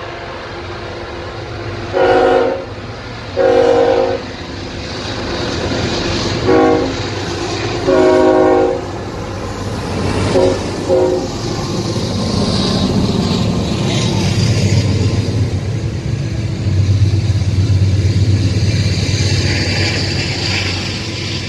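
Norfolk Southern diesel freight locomotive's air horn blowing: two long blasts, a short one and another long one, then a couple of quick short toots about ten seconds in. After that comes the steady rumble of the locomotives and double-stacked intermodal container cars rolling past, growing louder in the second half.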